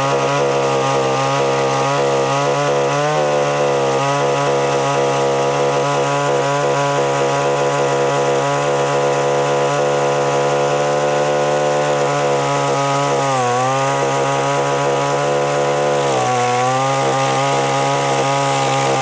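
Gasoline chainsaw running at high revs while cutting green pecan limbs. The engine pitch dips briefly about 13 seconds in and sags again about 16 seconds in as the saw takes load in the wood.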